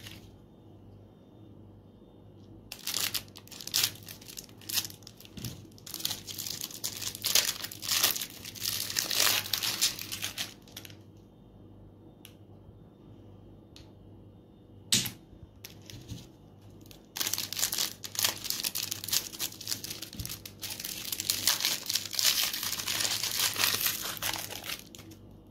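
Clear cellophane wrappers crinkling and crackling as they are pulled off swirl lollipops by hand, in two long bouts with a lull between them. A single sharp click sounds in the lull.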